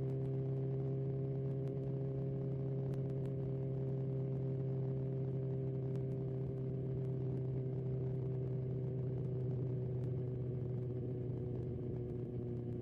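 BMW S1000XR's inline-four engine running at a steady, moderate speed while the motorcycle cruises, its pitch easing slightly lower near the end as the bike slows a little.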